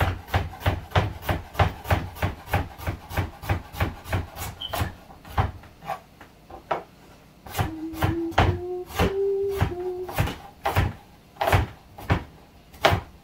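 Kitchen knife chopping carrots on a wooden cutting board: quick even knocks, about four a second, then slower and more irregular from about five seconds in. A few hummed notes come in the middle.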